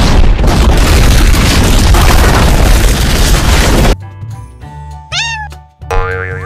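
Cartoon sound effects over background music: a loud, noisy rushing burst that cuts off suddenly about four seconds in. About a second later comes a short meow-like call that rises and then levels off, and near the end a pitched slide tone begins to rise.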